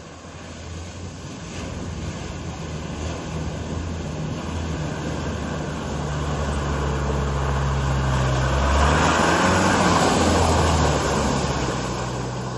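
Land Rover Defender driving through a flooded, muddy bog hole: the engine runs under load while water and mud splash around the wheels, growing louder as the truck comes close and loudest about nine to eleven seconds in. The driver misses a gear on the way through.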